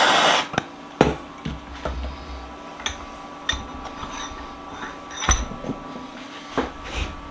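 A loud, steady rushing noise cuts off abruptly within the first half second. Then come scattered sharp metallic clinks and knocks as steel vise parts and tools are handled and set down on a workbench.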